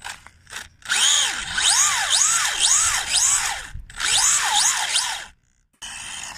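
Small electric motor revving up and down in quick throttle blips, about two a second, each a rising then falling whine, with two brief pauses.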